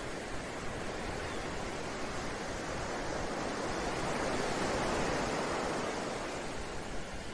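Ocean surf: a wave swelling up to a peak about five seconds in and then washing back.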